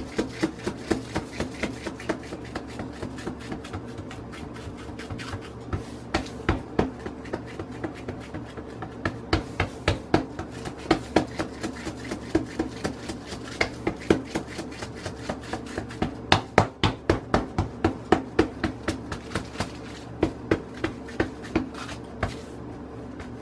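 A hand patting and pressing tortilla dough flat on a plastic sheet: repeated slaps, about two a second, some sharper than others, over a steady low hum.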